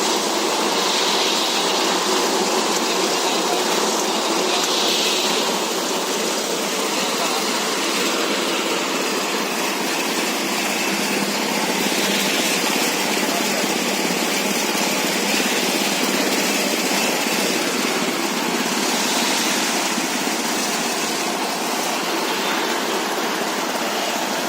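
Animal-feed pellet mill driven by a 22 hp diesel engine, running steadily under load.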